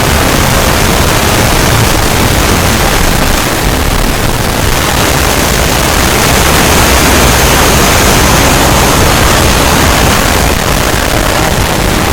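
Loud, steady static-like noise filling the whole range from low to high, with no clear tone or rhythm.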